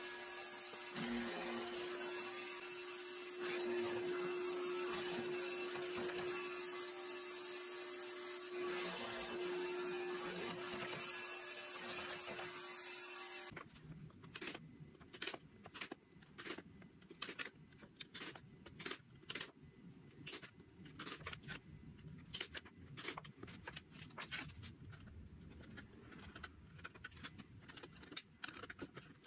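A mortising machine's motor runs steadily with a strong humming tone as its square chisel bit cuts mortises in walnut. It cuts off abruptly about halfway through, and light, irregular taps follow: a small hammer striking a chisel to clean out the mortises.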